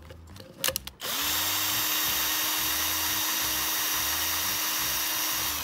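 Electric drill-driver running steadily, backing out the screws that hold the speaker driver in place. It spins up suddenly about a second in, after a few small clicks, and stops near the end.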